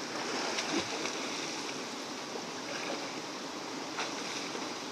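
Muddy, fast-flowing river rushing steadily, with light splashing from a person swimming and wading through it.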